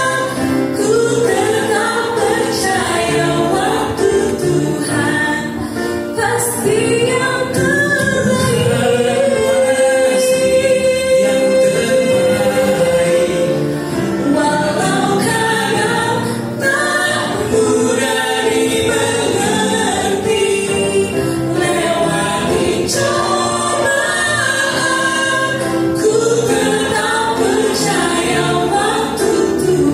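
A woman and a man singing a gospel song as a duet into microphones, in Indonesian. About a third of the way in, one note is held for several seconds.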